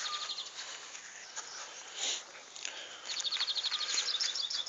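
Dog digging and snuffling with its nose in a hole in garden soil, making short scrapes and sniffs. A small songbird sings a fast high trill, ending just after the start and again from about three seconds in, closing with a few falling notes.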